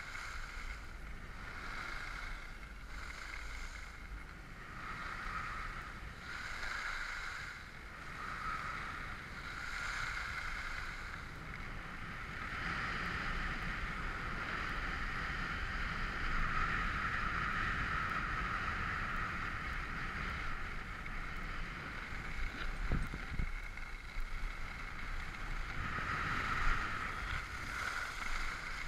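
Skis sliding and scraping over snow during a downhill run: a hissing swish that swells and fades with each turn about once every second or so, then runs on as a longer steady slide, with a few sharp knocks near the end.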